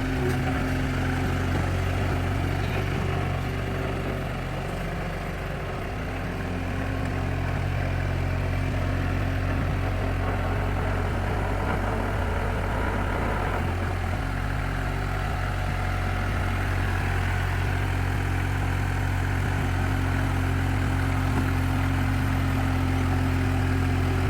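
Skid steer's Perkins 403J-11 three-cylinder diesel engine running steadily, with a short dip in its note about five seconds in.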